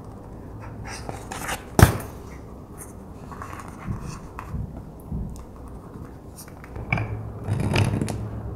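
Small metal snap-button parts and leather being handled, with light clicks and a sharp click about two seconds in. Near the end a hand press sets a snap button through the leather with a short burst of metal-on-metal crunching.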